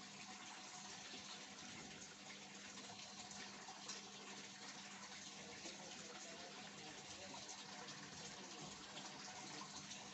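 Faint, steady scraping of a Victorinox Swiss Army knife blade being worked over a whetstone, with a low steady hum underneath.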